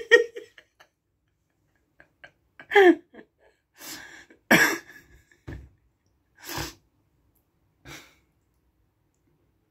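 A person's short outbursts of breath and voice, spaced by pauses. The loudest comes about four and a half seconds in, and the last about eight seconds in.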